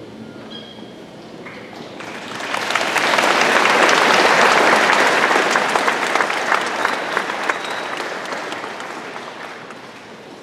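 A crowd applauding, the clapping swelling about two seconds in and dying away near the end.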